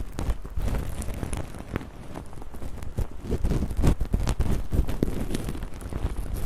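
Close-miked ASMR ear-cleaning-style sounds: dense, fizzy crackling and rubbing right against the microphone, with many small sharp clicks and a heavy low rumble from contact with it.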